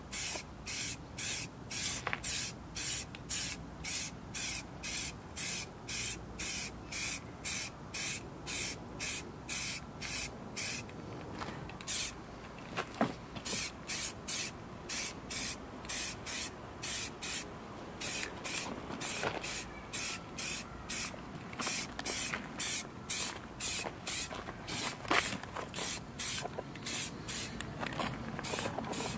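Aerosol can of gold Plasti Dip rubber coating sprayed onto a wheel in quick passes: a rapid run of short hisses, about two a second, with a couple of brief pauses.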